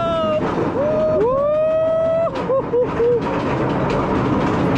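A frightened rider's voice: a long drawn-out wail about a second in, then a few short whimpering cries. Underneath, the coaster train is clattering steadily up the lift hill.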